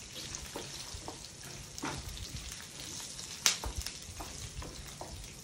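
Oil sizzling steadily as groundnuts and dals fry in a tempering, with a wooden spatula stirring and tapping against the pan in short clicks; one sharper tap comes about three and a half seconds in.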